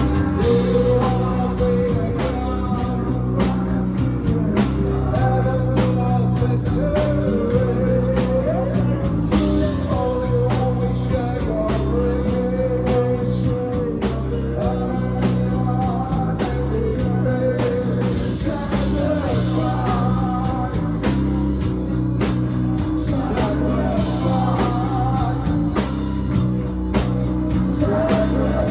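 Live rock band playing loudly: a heavy, repeating low riff over drums, with a wavering melody line riding above.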